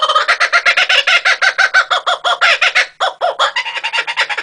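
Laughing kookaburra calling its laugh, a loud, rapid, unbroken run of short staccato notes, about eight a second, with a brief break about three seconds in before the laughing picks up again.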